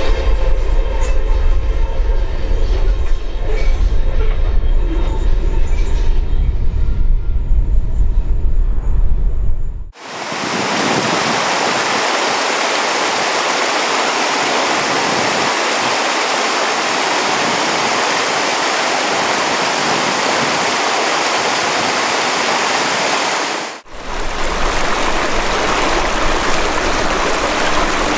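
Loaded iron-ore hopper wagons rolling past on the track with a heavy low rumble and faint steady wheel tones. About ten seconds in the sound cuts to a waterfall rushing over rocks, and a few seconds before the end it cuts again to a small stream running over stones.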